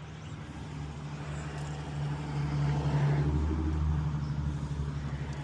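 A motor vehicle's engine running, a steady low hum that grows louder over the first three seconds and then holds.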